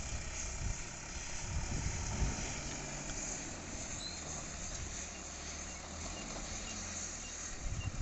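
Backhoe loader's diesel engine running at a steady low drone as the machine moves slowly over the dirt.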